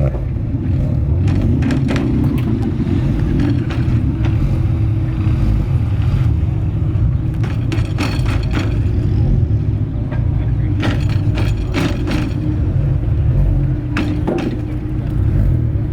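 A car engine running steadily at a constant speed, with scattered sharp clicks and knocks over it.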